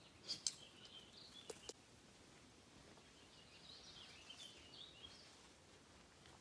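Faint birdsong: two short chirping phrases, one in the first two seconds and one around the middle. A few sharp clicks come in the first two seconds, the loudest of them about half a second in.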